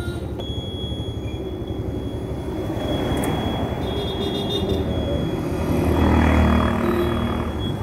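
Wind buffeting and road rumble on a phone microphone riding on a moving scooter, with a thin steady high whine. The traffic noise swells about six seconds in as an auto-rickshaw passes close by.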